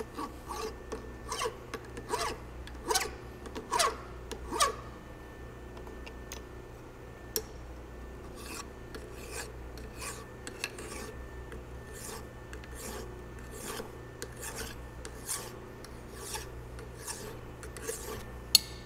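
Hand file stroking back and forth across the edge of a metal driveshaft yoke, a steady rhythm of rasping strokes, firmer in the first few seconds and lighter after. The edge is being dressed and deburred by hand instead of on a lathe.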